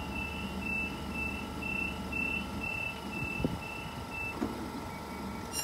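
Door-closing warning beeps of a Sydney Trains double-deck suburban train, a row of about nine short high beeps about two a second that stop about four seconds in. Under them runs the steady low hum of the stopped train.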